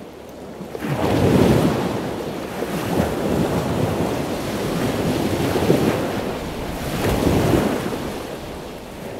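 Ocean waves washing, swelling and ebbing every second or two, starting about a second in.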